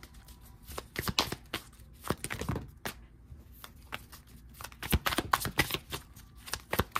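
A tarot deck being shuffled and cards handled: bursts of quick, crisp flicks and slaps of card stock, in clusters about a second in, around two and a half seconds, and again around five to six seconds.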